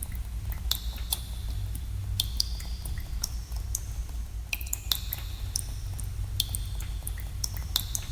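Water drops falling in a cave, several irregular drips a second, some landing with a short ringing plink, over a steady low hum.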